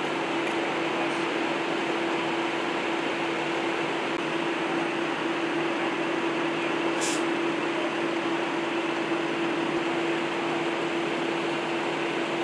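Fire engines running steadily at a fire scene: a constant droning hum over an even wash of noise, with one short hiss about seven seconds in.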